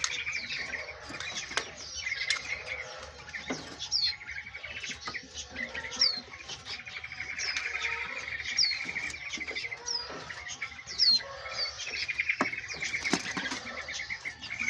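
A stall full of caged songbirds chirping and calling together. Short high chirps sweep downward again and again over a fast, steady trill, with scattered sharp knocks among the cages.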